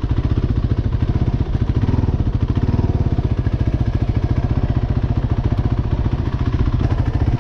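Kawasaki KFX 450R ATV's single-cylinder four-stroke engine running steadily at idle, a fast, even thumping of firing pulses with no revving, freshly serviced with new oil and coolant.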